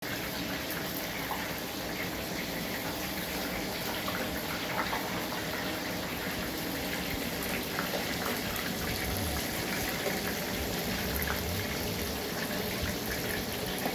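Steady rain falling, an even hiss with scattered small patters.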